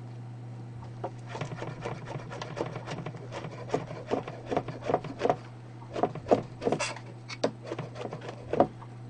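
Chef's knife mincing shiitake mushrooms on a plastic cutting board: quick, irregular taps of the blade striking the board, starting about a second in and running several a second.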